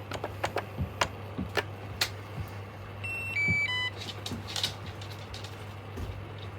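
Dreame L10s Ultra robot vacuum sounding a short electronic chime of a few stepped beeps about three seconds in, over a steady low hum and scattered sharp clicks.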